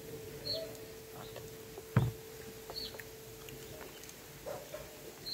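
Quiet room noise with a faint steady hum, broken by one sharp knock about two seconds in.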